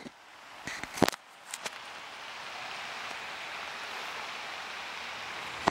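Steady, even outdoor hiss, with a few sharp clicks about a second in.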